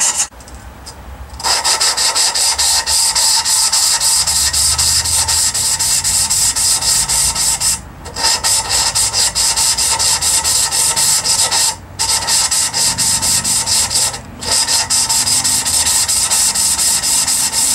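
Valve being lapped into its seat in a Jeep 4.0 cast-iron cylinder head: the valve is turned against the seat with valve grinding compound, giving a rapid, rhythmic gritty rasping. It starts about a second and a half in and breaks off briefly three times.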